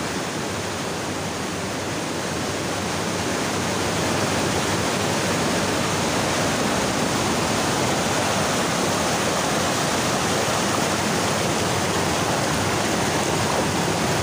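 Fast mountain stream rushing over and between rocks, a steady roar of white water that grows a little louder about four seconds in.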